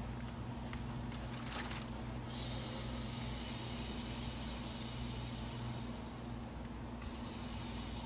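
Sharp hiss of gas rushing through the refrigerant charging line at a refrigerator compressor's service valve, starting abruptly about two and a half seconds in, breaking off briefly near the end and coming back, over a steady low hum.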